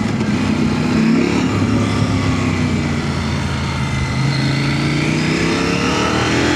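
KTM 890 Adventure's parallel-twin engine running through a Black Widow hexagonal 300 mm stainless slip-on exhaust with the standard catalytic converter, heard on board while riding. The engine note holds fairly steady, then climbs in pitch over the last couple of seconds as the bike accelerates.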